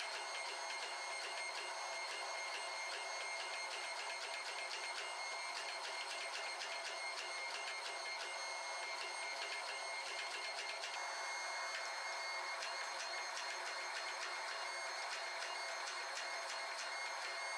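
Hydraulic forging press working a red-hot steel billet between flat dies: a steady high whine made of several held tones, with many fine clicks running through it.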